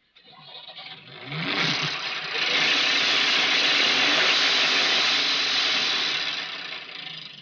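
An old van's engine starting and revving up about a second in, then running loudly for several seconds before fading near the end.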